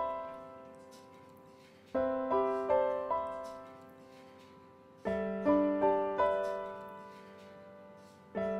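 Background piano music: short rising arpeggios of four notes, each group left to ring out and fade, starting about every three seconds.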